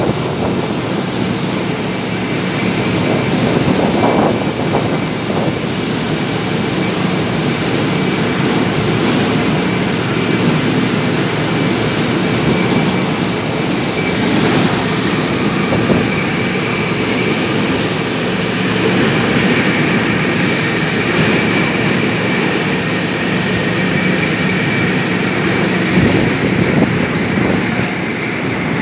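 Heavy construction machinery running steadily: a low engine hum with a thin high whine through it that grows a little clearer about halfway.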